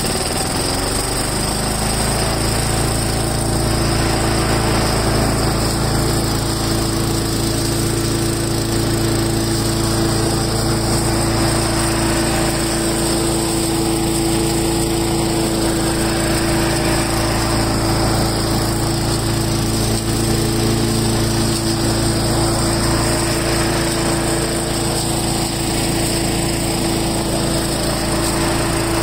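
Small gasoline engine of a Craftsman 4-in-1 leaf mulcher, freshly started on full choke, picks up speed in the first second and then runs steadily at full speed.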